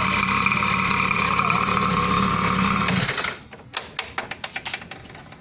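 Small motorbike engine running steadily, cutting off abruptly about three seconds in, followed by a few faint clicks and knocks.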